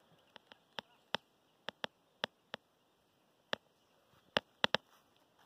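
About a dozen sharp, irregular clicks over an otherwise quiet background, several close together near the start and a tight cluster after about four seconds.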